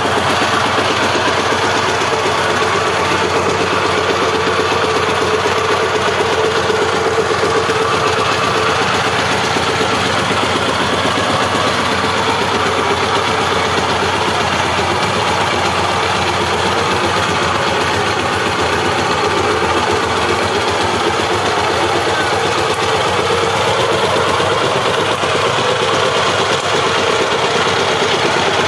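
Walk-behind power tiller's single-cylinder diesel engine running steadily at a constant level while the tiller is driven along.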